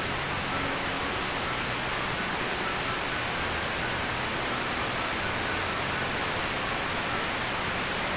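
Steady rush of a waterfall's falling water, an even hiss that does not change.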